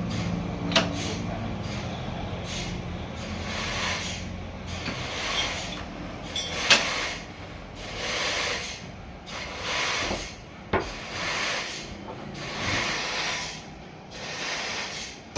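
Repeated scraping strokes on wood, one every second or so, with a few sharp knocks between them. A machine's low hum fades out over the first few seconds.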